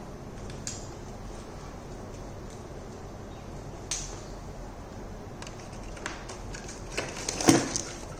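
Quiet room tone with a faint low hum, broken by a few small clicks and one louder knock near the end.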